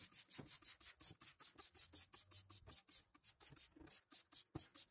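Trigger spray bottle of engine degreaser squeezed rapidly, a fast run of short faint spritzes about seven a second, foaming the product onto a metal exhaust heat shield.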